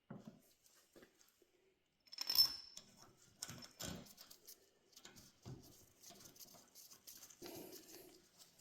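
Small metal parts and tools being handled during hydraulic pump assembly: scattered light knocks and clicks, with one sharper metallic clink that rings briefly about two seconds in.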